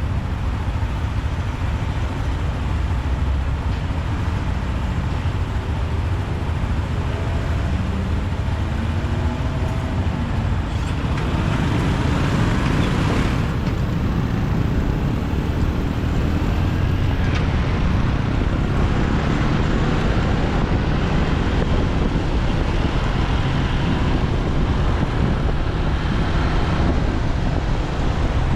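Motorcycle riding through city traffic: steady road and engine noise with a low rumble, a faint engine note rising and falling, and a louder swell about twelve seconds in.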